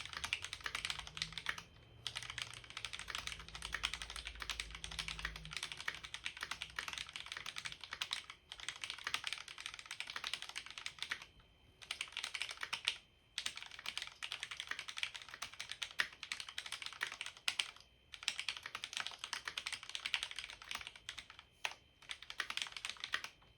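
Fast, continuous typing on a Cherry MX Board 3.0 mechanical keyboard with Cherry MX Red linear switches lubricated with Super Lube spray and Permatex-lubed stabilizers. Rapid key strokes are broken by short pauses every few seconds.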